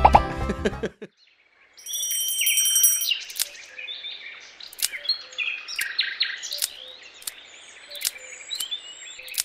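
Birds chirping and tweeting over a soft hiss, with sharp clicks scattered through. They follow the tail of the background music, a short gap, and a brief bright twinkling chime.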